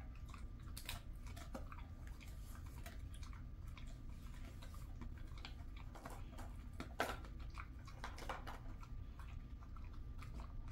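A Jindo dog chewing a piece of chicken breast jerky: soft, irregular crunches and mouth clicks, with one sharper crunch about seven seconds in.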